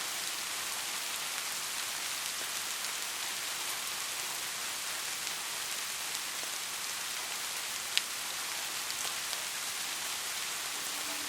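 Steady rain falling, an even hiss with individual drops ticking now and then, and one sharp, louder tick about eight seconds in.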